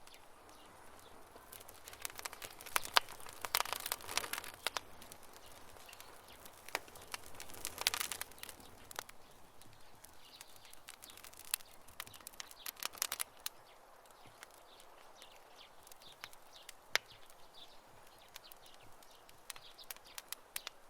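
Campfire crackling: irregular sharp pops and snaps from burning wood, coming in clusters with quieter stretches between, over a soft hiss.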